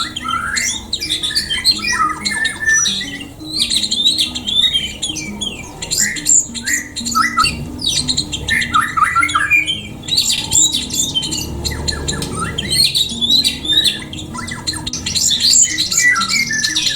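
Many small cage birds chirping and squawking at once in dense, overlapping calls, over soft background music.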